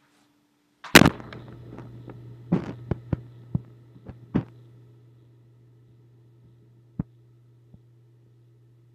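About a second in, a loud sharp knock, and a steady low electrical hum starts with it. Several more knocks and taps follow over the next few seconds and then thin out into a couple of faint clicks.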